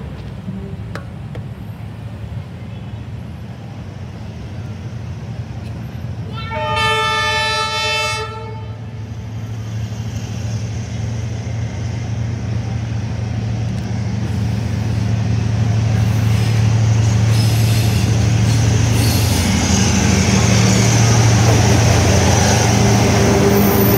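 D19E diesel-electric locomotive hauling a passenger train toward a level crossing. About a quarter of the way in it sounds one horn blast of about two seconds, then its rumble grows steadily louder as it approaches.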